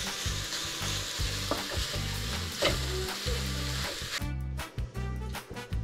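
Grated carrot frying in hot ghee in a karahi: a steady sizzle, with a ladle stirring and scraping the pan. About four seconds in it gives way suddenly to background music.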